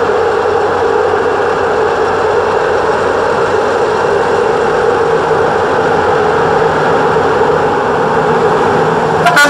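Railway locomotive running with a steady drone and a strong hum, a few clicks near the end.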